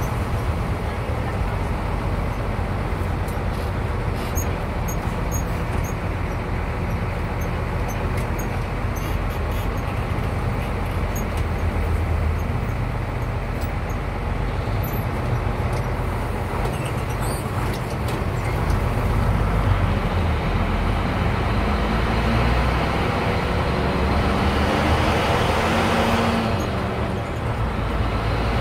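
Engine drone and road noise heard from inside a moving bus, steady throughout, with the rush of noise growing louder for several seconds in the second half.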